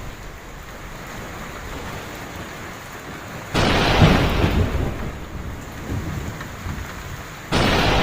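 Heavy rain falling steadily, with two sudden thunderclaps about three and a half and seven and a half seconds in; the first rumbles on for a couple of seconds as it fades.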